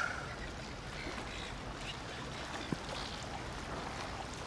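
Water sloshing and lapping against a boat's hull, with one short sharp tick a little under three seconds in.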